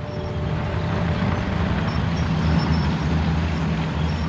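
M4 Sherman tank driving along a road: a steady, low engine rumble.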